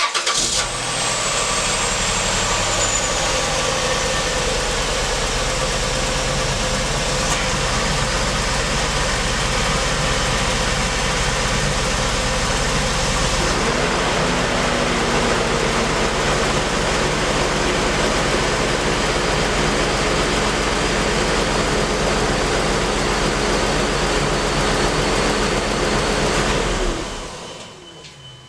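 Car engine started and left idling to build oil pressure after fresh oil and a new oil filter, a check for leaks. It starts abruptly, runs steadily, its idle note shifts lower about halfway through, and it is switched off near the end.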